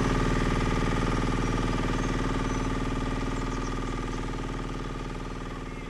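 Small diesel engine of a UHI10P mini excavator running steadily at idle, slowly fading away.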